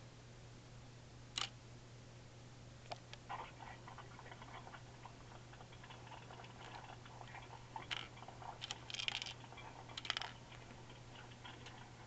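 Plastic Lego parts of a candy machine mechanism clicking and rattling as it is worked by hand: scattered single clicks and a few short rattles, over a steady low hum.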